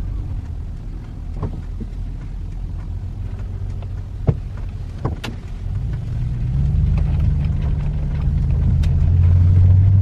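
Vehicle engine and road noise heard from inside the cab: a steady low rumble that grows louder from about six seconds in as the vehicle gets moving. Two sharp clicks sound near the middle.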